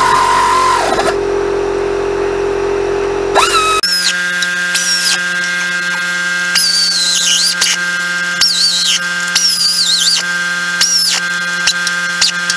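Pneumatic air ratchet running bolts in: a wavering whine that settles into a steadier, lower tone. About four seconds in, the sound gives way to a steady hum broken by short high squeals and clicks roughly once a second.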